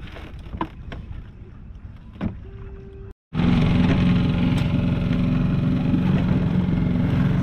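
Light knocks and clicks of handling gear in the boat, then, after a cut, a small Honda four-stroke outboard running steadily, freshly started after it had refused to start.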